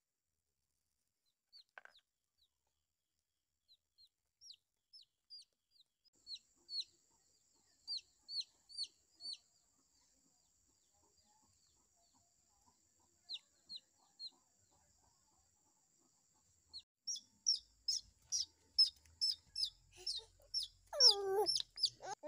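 Domestic chicken chick peeping: short, high, falling peeps, a few at a time at first, then a quick, louder run of peeps over the last five seconds. A short lower vocal sound, like a child's voice, comes near the end.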